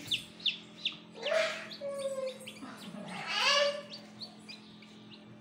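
Newly hatched chicks peeping: a quick run of short, high, falling chirps, with two louder drawn-out calls about a second and three and a half seconds in. A steady low hum runs underneath.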